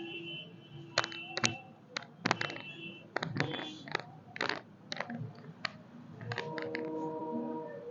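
A series of sharp cracks and clicks, a dozen or so spread irregularly, from joints being popped during chiropractic manipulation.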